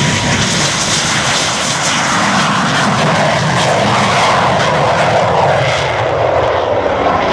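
A fixed-wing aircraft flying past, loud and steady, its engine note falling in pitch during the second half as it passes.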